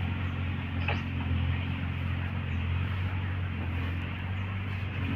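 Heavy diesel engine running steadily at a constant speed, with one faint short click about a second in.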